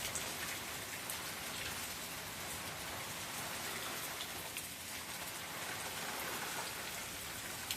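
Steady rain falling in a thunderstorm, a constant hiss with many small drop ticks scattered through it.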